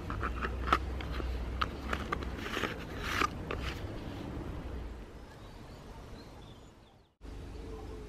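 Plastic clicks and short scraping rasps as the green base of a tube seed feeder is fitted and twisted onto the seed-filled tube, over a low rumble. The handling sounds die away and, after a brief cut to silence near the end, give way to faint outdoor ambience.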